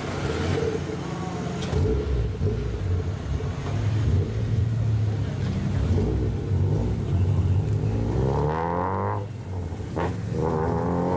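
Lowered Honda Civics drive slowly past, their exhausts droning at low revs. Near the end an engine revs up twice, its pitch climbing each time.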